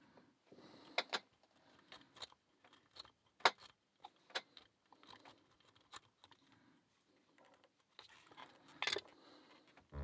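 Metal lock-picking tools, a tension wrench and a paperclip rake, clicking and scraping against a padlock. The clicks are sharp and come at irregular times, the loudest about three and a half seconds in and near the nine-second mark.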